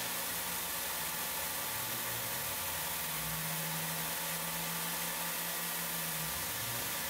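Tormach 770 CNC mill cutting P20 tool steel with a small ball end mill: a steady hiss over a constant machine hum, with a low tone that shifts pitch in steps through the middle of the cut.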